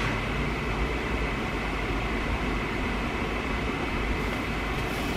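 Steady background hum and hiss of room noise, even throughout, with no distinct clicks or beeps.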